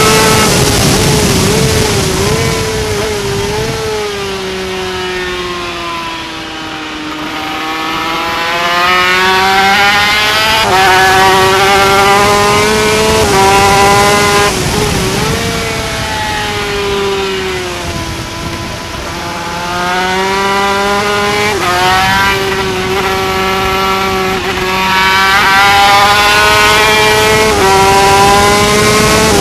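Yamaha TZ250 two-stroke racing motorcycle engine at race speed, recorded on the bike: the engine note falls twice as the bike slows for corners and climbs again under acceleration, with short steps at each gear change, over steady wind noise.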